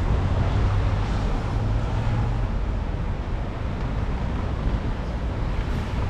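Steady outdoor street noise: passing traffic with a low rumble of wind on the microphone.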